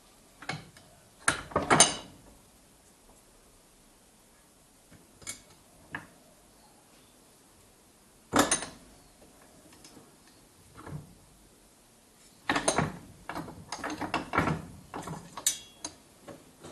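Scattered metal clanks and knocks from the bandsaw's steel blade-guide bearing assembly being handled in a cast-iron bench vise, along with the vise handle being turned. The loudest clanks come about two seconds in and again a little past eight seconds, and a quick run of clinks and knocks follows near the end.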